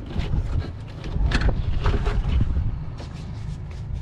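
Wind buffeting the camera microphone in an uneven low rumble, heaviest in the middle, with scattered clicks and knocks from work on the van.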